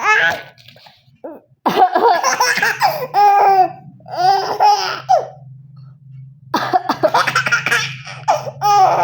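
A baby laughing hard in four high-pitched bouts, set off by an adult's playful fake coughing, with put-on coughs between the laughs. A steady low hum runs underneath.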